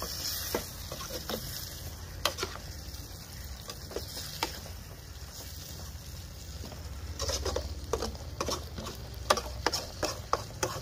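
Perforated steel ladle stirring bitter gourd curry in an aluminium kadai on a gas flame, the sauce sizzling steadily. The ladle clicks and scrapes against the pan now and then, most often in the last few seconds.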